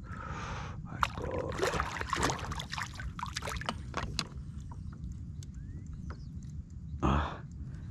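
A hooked tambaqui thrashing and splashing at the water's surface beside a kayak: a quick run of splashes for about the first four seconds, then one short loud burst near the end, over a steady low wind rumble.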